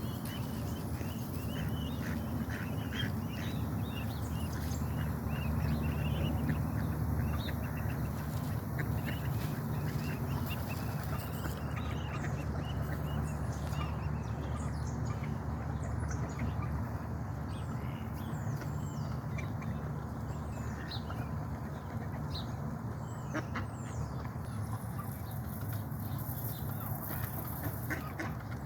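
Muscovy ducklings peeping: many short, high, sliding calls scattered throughout, over a steady low rumble.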